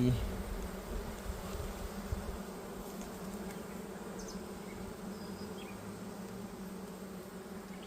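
Honeybees buzzing around an opened hive during a frame inspection: a steady, even hum of many wings.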